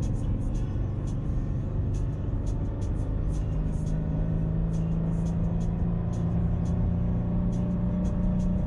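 Toyota 86's FA20 2.0-litre flat-four engine pulling steadily uphill, heard inside the cabin over low road and tyre rumble; its note firms up and rises slowly in pitch over the second half as the car gathers speed.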